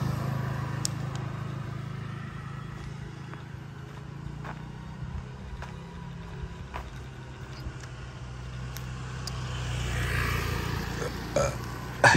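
Motor scooter engine passing and fading away, then a second scooter approaching and growing louder toward the end.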